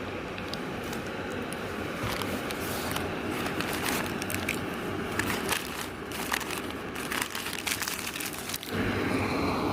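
Irregular crinkling and crackling handling sounds over a steady hiss, changing abruptly near the end to a steady rush of wind or running water.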